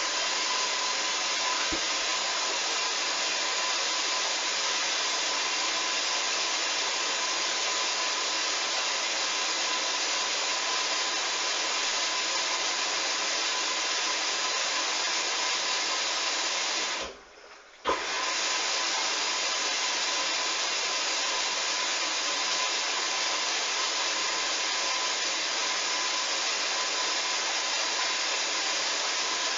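Hoover washing machine filling with water, a steady rushing hiss of water through the inlet. It cuts out for about a second some seventeen seconds in and comes back with a click, as the fill valve shuts and reopens.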